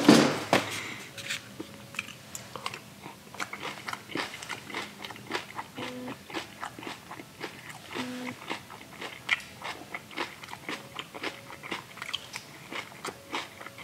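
Irregular close-up crunching clicks and crackles of a plastic spoon working a foam cup of coleslaw and of crunchy coleslaw being eaten.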